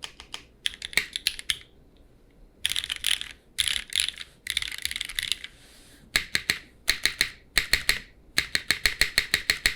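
Typing on a custom mechanical keyboard with Cherry MX2A Black linear switches, Drop DCX keycaps and no case foam. Quick bursts of keystrokes come with short pauses, a brief break about two seconds in, and faster, even runs in the second half.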